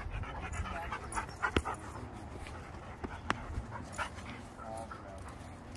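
Dogs playing rough together, panting, with a brief whine near the end and two sharp clicks in the middle.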